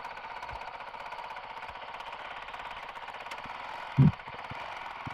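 Honda CRF450RL's single-cylinder four-stroke engine running steadily at low speed with a fast, even pulse. There is one short, louder low thud about four seconds in.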